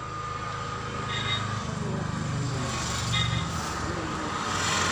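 A motor vehicle engine running, growing gradually louder, with two short high chirps about a second and three seconds in.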